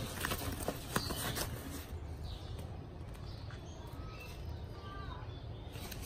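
Li-Ning backpack's nylon fabric and zippered panels rustling and rubbing as it is handled, a cluster of scuffs in the first second and a half, the loudest about a second in. Faint bird chirps are heard in the background later on.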